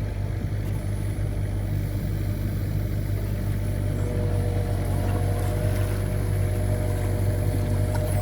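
Mini excavator engine running steadily under load while digging heavy mud, with a higher steady tone joining about halfway through.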